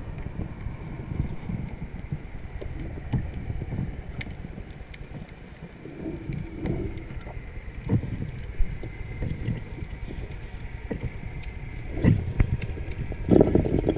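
Underwater sound picked up through a waterproof camera housing: low muffled rumbling with irregular knocks and scattered sharp clicks, and a faint steady high whine. A louder rush of noise comes near the end.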